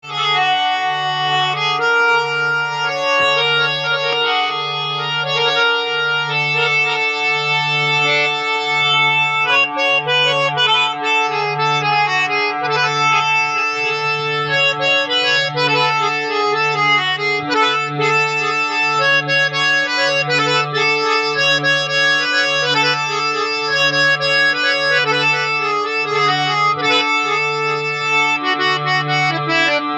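Harmonium with German-made reeds being played, just repaired: a melody of steady reedy notes over a low note that swells and fades at an even pace, a little under once a second.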